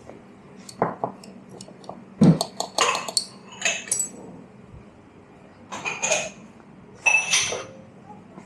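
Clinks and knocks of cups, saucers and barista tools: a string of short clatters, the loudest a little over two seconds in, and a ringing clink near the end.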